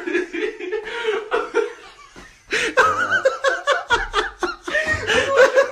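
Laughter in quick rhythmic bursts that dies down briefly about two seconds in, then breaks out again.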